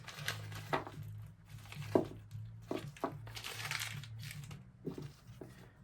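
Small plastic packaging crinkling and crackling as it is unwrapped by hand, with scattered sharp clicks, over a faint steady hum.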